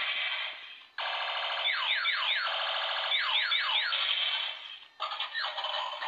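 Transforming robot toy car's built-in electronic sound effects through its small, tinny speaker: alarm-like tones with repeated quick falling laser-gun zaps. A short burst dies away, then from about a second in a long steady run of effects with sweeps, turning choppier near the end.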